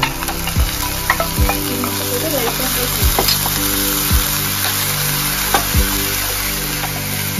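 Ginger-garlic paste and curry leaves sizzling in hot oil in a nonstick frying pan. The sizzle starts as they hit the oil, and a spatula stirring them knocks against the pan now and then.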